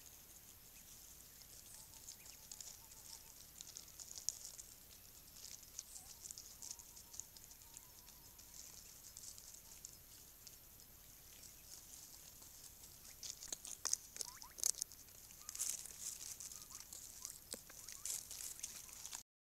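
Spot-winged wood-quails foraging on the forest floor: faint rustling and scratching in dry leaf litter, heaviest about two-thirds of the way through, with a few faint soft calls. The sound cuts off suddenly near the end.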